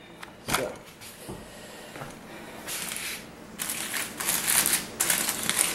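Aluminium foil crinkling and crackling in bursts as a foil packet is pulled open by hand, getting louder through the second half. A light knock comes about half a second in.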